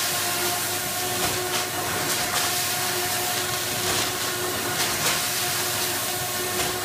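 Sigma Basic Compact bread bagging machine running, bagging sliced loaves. A steady hum with an even hiss, broken by short rushes of noise at irregular intervals of about a second.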